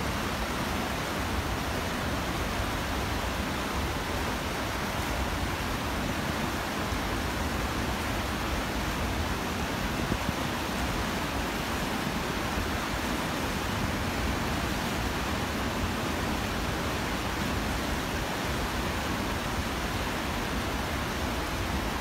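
Steady, even rush of a large waterfall and the rapids below it: falling and tumbling water with no breaks.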